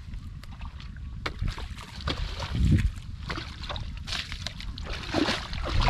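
Shallow water splashing and sloshing in irregular bursts, busier from about a second in, as hands work through a flooded rice field to catch fish, over a low rumble of wind on the microphone.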